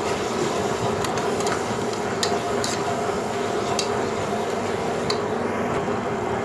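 Onion-tomato masala with ginger-garlic paste sizzling in oil in a pressure cooker pot while a steel slotted spatula stirs it, clinking against the metal pot a few times.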